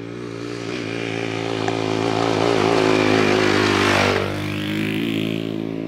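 Hanway G15 125 trail motorcycle riding past at steady speed: its engine grows louder as it approaches, is loudest about four seconds in, then drops in pitch and fades as it moves away.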